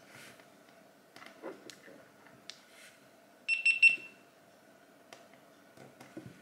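GoPro Hero 11 Black action camera giving its quick run of short high beeps as it powers on, lasting about half a second, between light clicks of the camera being handled.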